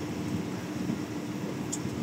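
Madrid Metro Line 10 train running at speed, heard from inside the car: a steady rumble of the wheels on the rails with a constant hum, and a brief high tick about three-quarters of the way through.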